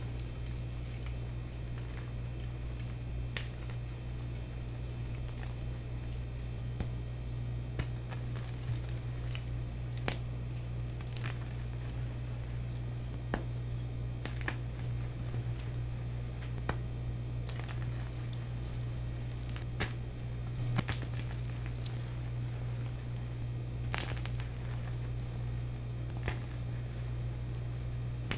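Hand crushing and crumbling blocks of plain white gym chalk: soft crunching and powdery crackling, with scattered sharp snaps as pieces break. A steady low hum runs underneath.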